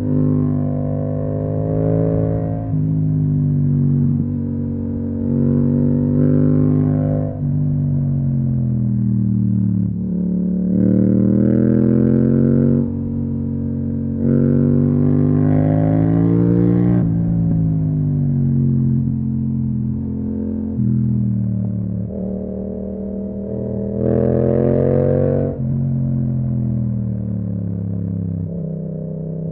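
Yamaha MT-07's 689 cc parallel-twin engine through an Akrapovic exhaust, ridden on the road. The throttle is opened several times, the revs climbing and the sound getting louder, then the pitch falls away each time it is closed, with steadier cruising between.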